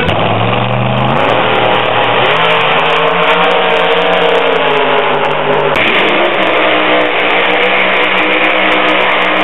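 Drag racing cars launching and running down the strip at full throttle, the engine pitch climbing sharply in the first second and then holding high. The sound changes abruptly about six seconds in.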